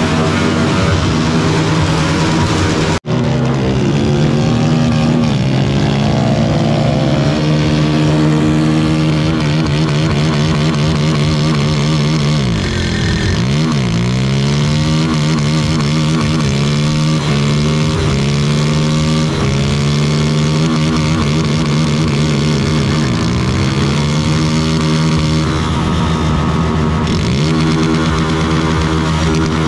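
Motorcycle engines running and revving, their pitch repeatedly rising and falling, with a brief break about three seconds in.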